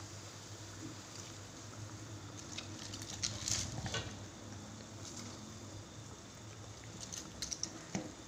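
A pot of chicken-bone vegetable soup boiling at a steady bubble. Pieces of cabbage are dropped into the water with small splashes and taps, in a cluster about three to four seconds in and again near the end.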